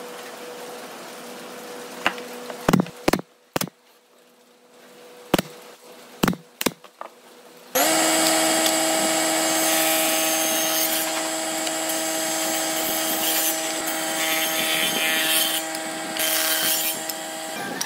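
A few sharp clicks and knocks as small wooden pieces are handled, then a table saw running steadily, a loud hum with a hiss over it, which cuts off shortly before the end.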